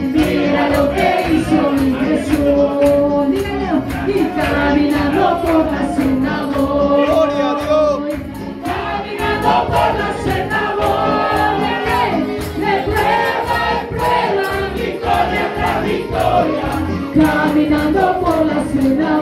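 Live evangelical praise chorus in Spanish: a worship leader and the congregation singing together over amplified band music with a steady beat.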